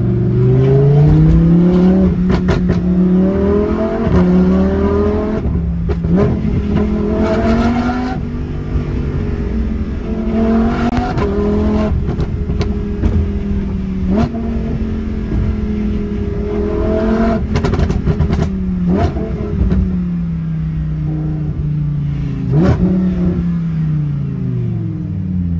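Lamborghini engine heard from inside the cabin, accelerating hard through the gears: the pitch rises again and again and drops at each shift, with sharp exhaust pops and crackles when the throttle lifts. Near the end the engine winds down as the car slows.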